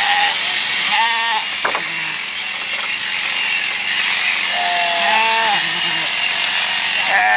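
Sheep bleating in a pen: a short call about a second in, a longer one a little past halfway, and another starting at the very end, over a steady mechanical hum.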